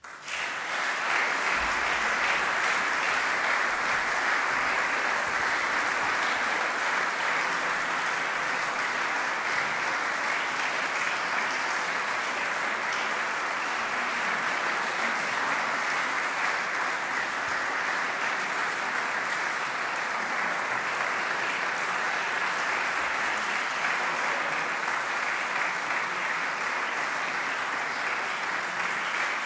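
Concert audience applauding a live performance, breaking out suddenly from near silence and then holding steady.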